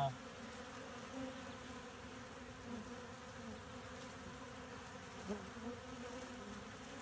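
A mass of honeybees buzzing in a frenzy at a hive entrance during a robbing attack, robber bees trying to force their way in while the colony fights them off. A steady hum, with single bees buzzing close past now and then.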